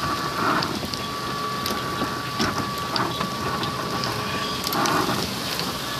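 Heavy thunderstorm rain pouring down, with many scattered sharp taps of drops striking nearby surfaces. A thin steady high tone runs under it and stops about three-quarters of the way through.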